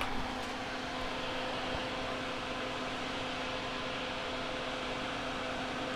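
Steady whir of a running fan, with a faint, even hum.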